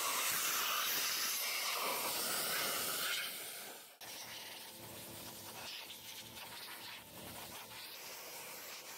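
Compressed-air blow gun hissing as it blasts dust out of a welder's transformer and wiring: loud at first, then dropping to a weaker hiss about three seconds in.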